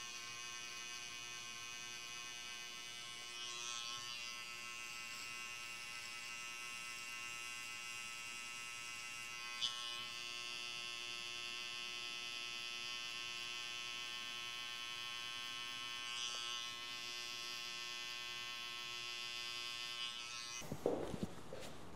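Cordless electric hair clippers running steadily, cutting short hair up the back of the head and nape. The motor cuts out near the end, followed by a few sharp clicks.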